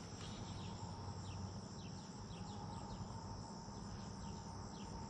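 Insects trilling steadily at a high pitch, with a series of short, falling chirps in the middle and a low rumble underneath.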